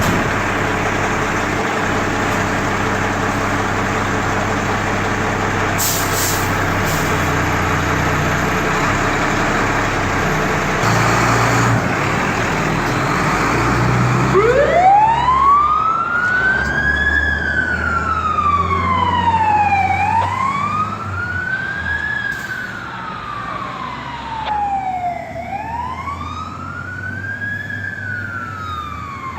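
Fire truck running loud with a steady engine hum, then about halfway through its siren starts: it winds up from low and wails slowly up and down, about five seconds to each rise and fall.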